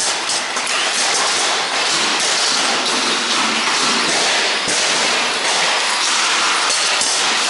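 Radio-controlled stockcars racing, a steady noise of their motors and tyres on the track surface. Scattered knocks come from the cars hitting each other and the barrier.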